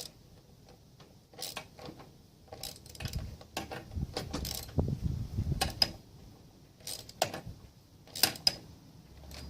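Hand tools working on the lawnmower's metal parts: irregular clicks, clinks and knocks of metal on metal, some ringing briefly.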